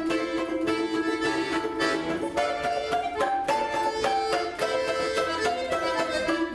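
Instrumental string music: a stepping melody over a steady held drone note, with quick plucked notes throughout.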